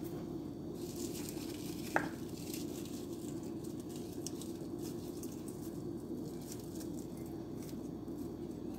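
Sliced onion being dropped and spread by hand over raw chicken wings in a metal baking pan: faint rustling and patter, with one sharp tap about two seconds in, over a steady low hum.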